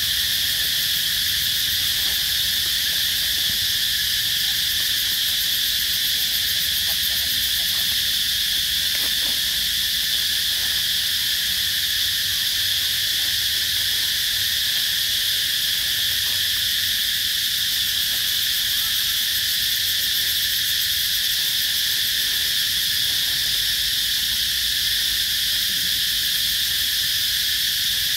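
Steady, high-pitched insect chorus that holds at the same level throughout, with no breaks.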